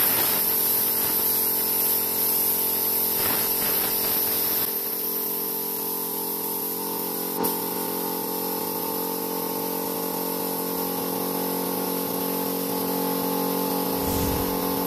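Paint spray gun spraying an alloy wheel: a steady hiss of air and atomised paint over a steady mechanical hum.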